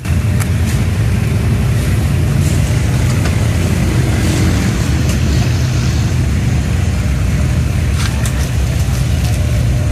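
Steady low roar of the gas burners under the frying karahis, with a few sharp clicks about eight seconds in.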